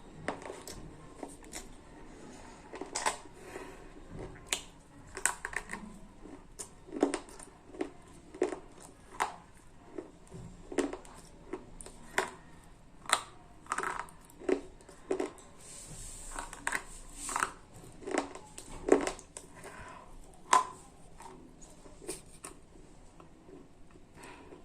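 Slate pencils being bitten and chewed close to the microphone: a long run of sharp, dry crunches, about one or two a second.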